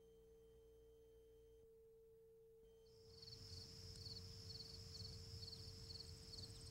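Faint, steady hum at first. About three seconds in, insects start up: a steady high trill with cricket chirps repeating two to three times a second, over a low rumble.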